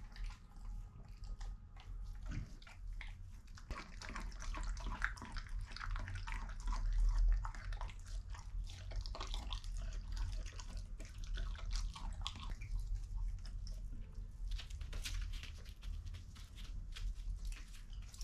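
A Belgian Shepherd dog chewing and biting into a slab of raw meat: irregular wet chewing and smacking sounds.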